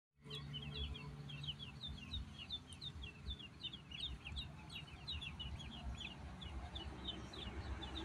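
A brood of ducklings peeping nonstop, many short, high, downward-sliding peeps overlapping several times a second.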